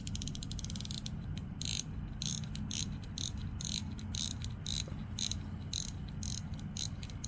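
Crown of a 1932 Burlington pocket watch being turned, its winding ratchet clicking: a quick run of clicks at first, then single clicks a few times a second.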